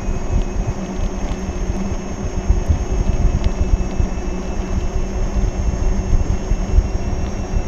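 Wind buffeting the microphone during a ride on a Gotway MCM4 electric unicycle, a loud, gusty low rumble mixed with road noise, with a faint steady high tone throughout.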